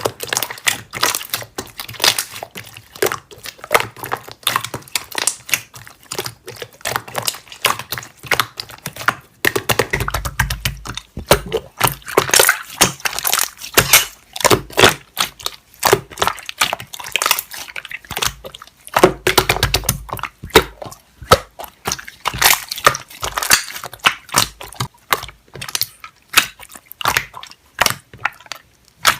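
Hands pressing, squishing and stretching slime, giving rapid irregular sticky clicks and small air-bubble pops. There are two denser, heavier squelching stretches, about ten seconds in and again about nineteen seconds in.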